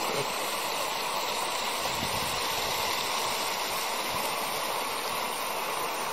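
Creek water running steadily over rocks and small riffles.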